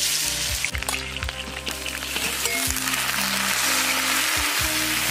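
Sliced garlic, shallots and dried chillies tipped into hot oil in a wok, sizzling loudly at once; the sizzle then keeps up steadily as the food fries. Background music plays underneath.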